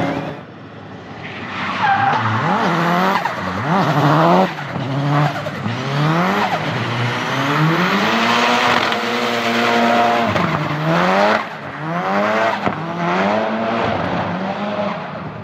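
Turbocharged Nissan 200SX engine revving, its pitch climbing and falling again and again with the throttle, over tyres squealing in a drift.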